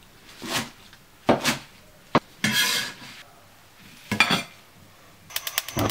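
Cleaver chopping scallions into lengths on a wooden cutting board: single sharp cuts about a second apart, with a longer scraping rustle in the middle as the cut scallions are gathered. Near the end comes a quick run of sharp clicks.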